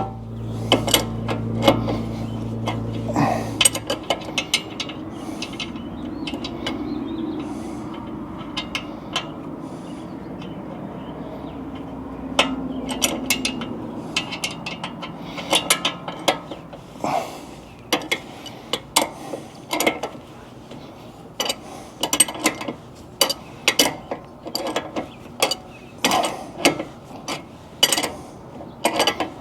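Hand tools working on a Jeep's steering linkage: a ratchet wrench clicking and metal parts clinking in a series of sharp clicks, about one a second in the second half. A steady low hum stops a few seconds in.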